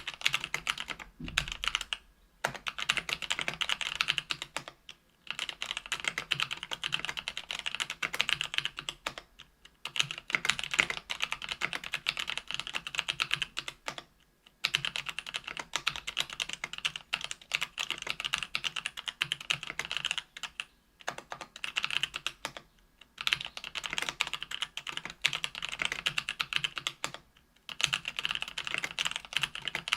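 Continuous typing on a KBDfans Tofu 65% aluminum keyboard fitted with stock Kailh Pro Purple 50g tactile switches on an aluminum plate with GMK keycaps. The keystrokes come in quick runs of several seconds, broken by brief pauses about every two to six seconds.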